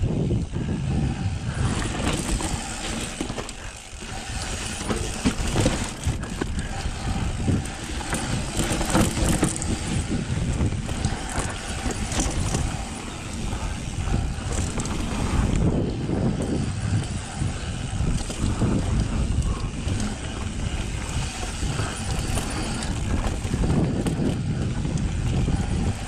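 Mountain bike descending a steep dirt trail at speed: tyres rolling over dirt, with the chain and frame rattling and knocking over bumps.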